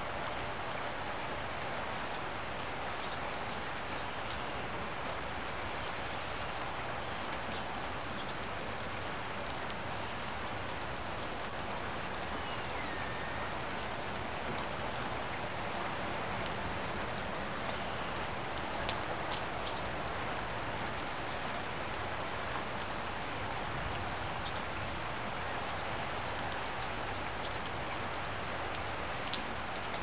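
Steady rain falling, an even hiss with an occasional sharper tap of a single drop.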